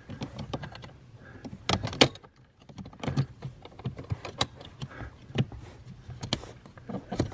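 Irregular clicks, knocks and light clatter of plastic and metal parts being handled and fitted around the heater core and its aluminium pipes as the cover goes back on.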